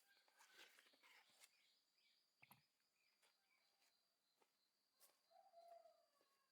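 Near silence with faint bird chirps in the background and a few soft clicks; one clearer falling call sounds about five seconds in.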